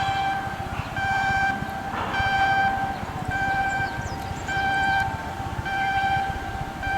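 An electronic warning alarm beeping, a pitched tone sounding about once a second, over a low mechanical rumble.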